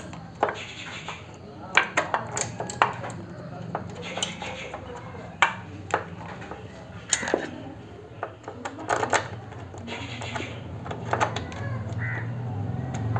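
Irregular metallic clicks and clinks of a small bolt and washer being handled and fitted as a motorcycle's finned aluminium regulator-rectifier is bolted back onto the frame, over a steady low hum.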